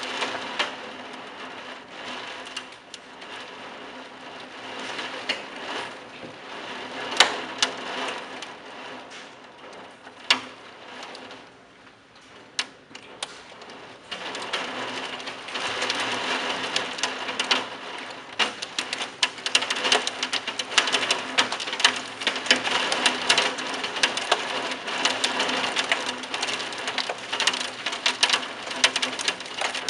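Torrential thunderstorm rain: a dense hiss studded with many sharp, close drop impacts. It eases off a little in the middle, then comes down harder and denser with impacts from about halfway.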